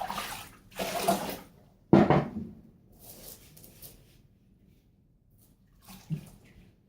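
Water splashing in a bathtub during a dog's bath, in a few short bursts, with a sudden loud knock about two seconds in and a small knock near the end.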